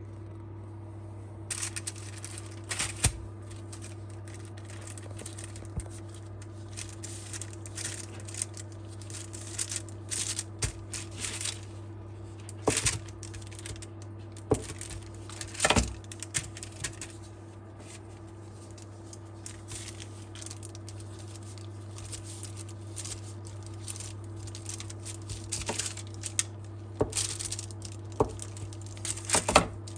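Kitchen handling sounds: irregular clinks, taps and short rustles of utensils and packaging, over a steady low hum.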